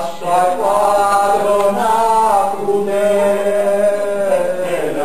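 A voice singing a slow melody in long held notes.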